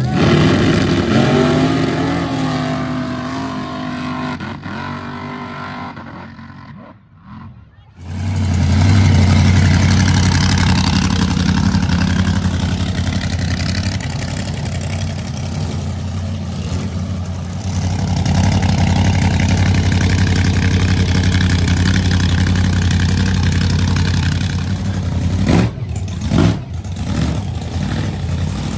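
Mud-racing vehicle engine revving, its pitch rising and falling, then dropping away about six seconds in. From about eight seconds in, a loud engine runs at a steady pitch, briefly dipping near the end.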